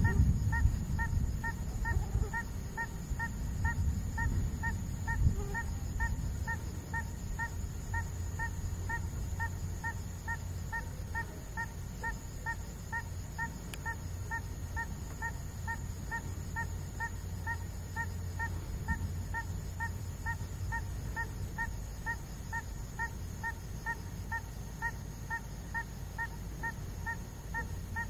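Thunder rumbling low, loudest at the start and settling to a steady lower rumble. Over it, a short high call repeats evenly about three times a second throughout.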